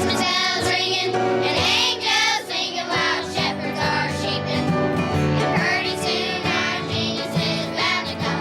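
Children's choir singing a song over instrumental accompaniment.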